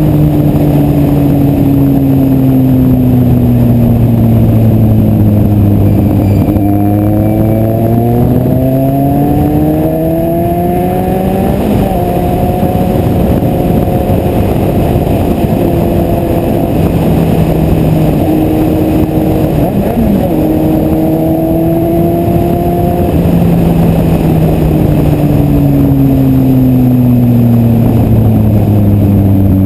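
Kawasaki Z750 motorcycle engine running loud. Its pitch sinks slowly for several seconds, climbs again until about twelve seconds in, holds fairly steady, then sinks again near the end.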